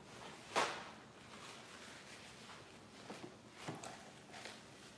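Kitchen handling knocks: one sharp knock about half a second in, then a few lighter knocks as a casserole dish is picked up off the counter.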